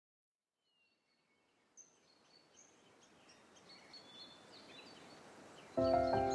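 A moment of silence, then a chorus of songbirds fades in, with many short chirps and whistles over a faint hiss. Near the end, louder music with sustained notes comes in over them.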